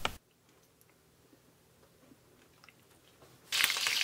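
Near silence, then about three and a half seconds in, butter and sunflower oil heating in a frying pan start sizzling, with a steady hiss full of small crackles.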